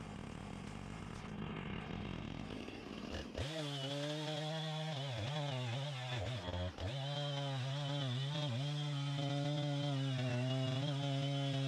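Chainsaw revving up to full throttle about three seconds in and running at high speed, its pitch dipping briefly several times.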